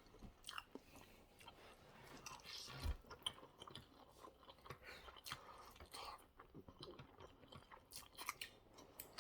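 Faint close-up chewing of spaghetti bolognese: soft wet mouth smacks and short clicks scattered throughout, with one soft low thump about three seconds in.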